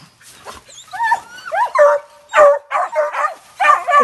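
Hunting dogs barking and yelping in quick succession, mixed with high rising and falling whines, starting about a second in: baying at a manicou (opossum) they have found.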